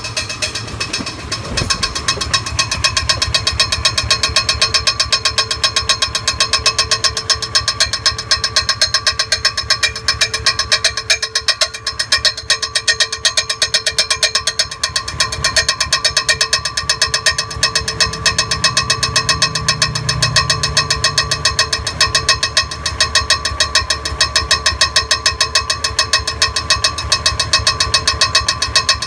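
2004 Lincoln Navigator's 5.4-litre V8 idling roughly, with a fast, even ticking and a rubbing noise from around the flywheel.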